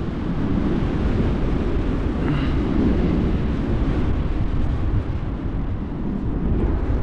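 Wind rushing over a GoPro's microphone in paraglider flight: a steady, deep rushing noise.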